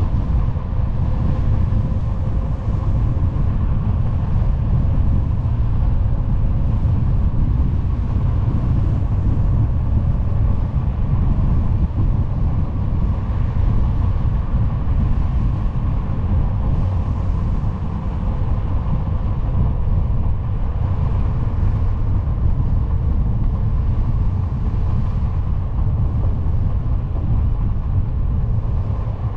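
Steady wind rumble on the microphone of a bicycle rolling at speed on asphalt, with a faint steady hum from the wide knobby tyre on the road.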